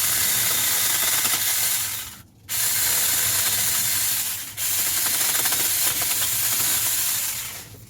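Saker 20-volt mini cordless electric chainsaw with a 4-inch bar running, its chain whirring. It stops briefly about two seconds in, starts again, and stops near the end.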